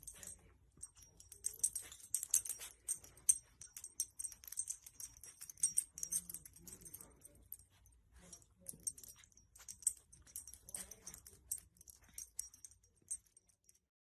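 Irregular light jingling and clicking, as of a dog's metal collar tags, coming in scattered clusters of quick ticks.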